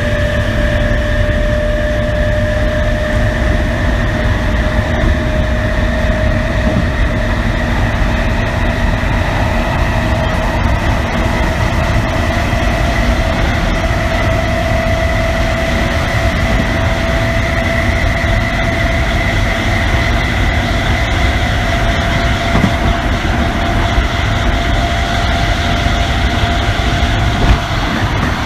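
Inside a running MTR East Rail Line MLR (Metro-Cammell) electric train: loud, steady rumble of wheels and running gear, with a strong traction-motor whine whose two tones rise slowly in pitch as the train gains speed. A brief knock comes near the end.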